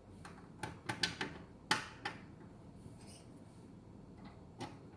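Light clicks and taps of a motorcycle visor and its bracket being handled and nudged into alignment on loosely fitted screws: a quick run of small knocks in the first two seconds, the sharpest a little under two seconds in, and one more near the end.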